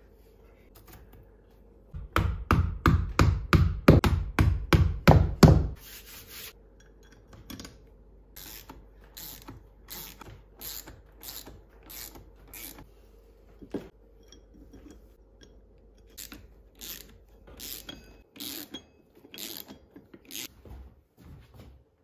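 Rhythmic rasping strokes of a hand tool working material. They come loud and fast, about three a second, for a few seconds, then turn lighter and slower, about two a second, for the rest of the time.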